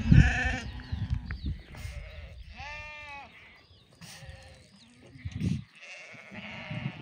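Flock of sheep bleating, several calls overlapping, with one clear, drawn-out bleat about three seconds in. A brief loud low rumble comes at the very start.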